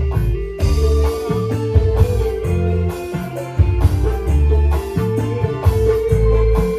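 Live instrumental dangdut band playing loud through a big PA sound system: a held electric-guitar melody over heavy bass, drum kit and hand drums keeping a steady beat.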